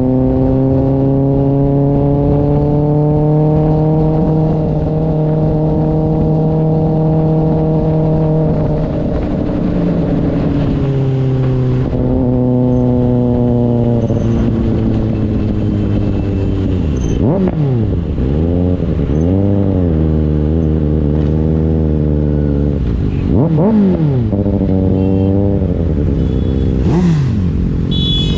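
Kawasaki ZX-6R's inline-four engine through an IXIL aftermarket exhaust, held at steady revs that creep up for several seconds, then easing off about nine seconds in, followed by a string of quick throttle blips that sweep the pitch sharply up and down in the second half.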